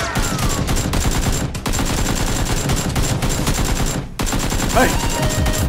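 Rapid automatic gunfire, a near-continuous stream of shots with brief breaks about one and a half and four seconds in.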